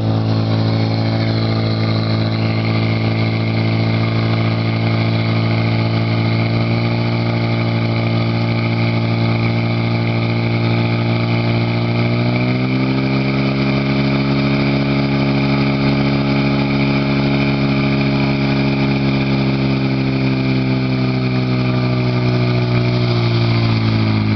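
Portable fire pump's engine running hard at high revs, a steady drone while it pumps water through the attack hoses. Its pitch climbs a little about halfway through and drops away right at the end.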